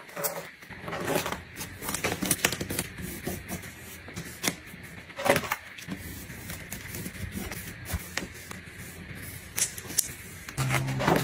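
Irregular clicks, taps and knocks of household items being handled and set down, with a short low buzz near the end.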